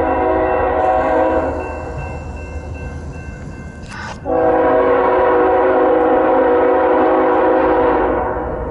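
Freight diesel locomotive's air horn sounding a multi-note chord in two long blasts. The first fades away by about four seconds in; after a short break the second starts and holds until about eight seconds in.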